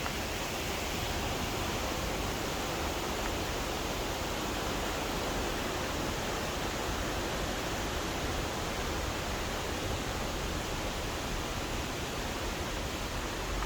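Steady, even rush of water from a mountain river cascade.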